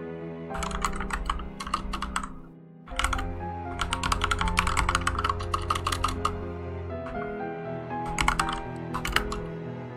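Typing on a computer keyboard in three quick bursts of keystrokes, over background music.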